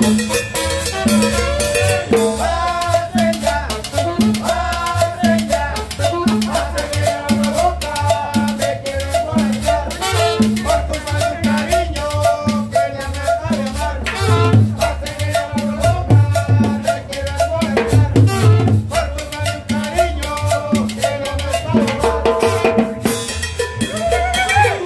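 Live tropical dance band playing salsa-style music with upright bass, saxophone, hand drums and cymbal over a steady beat, and a man singing.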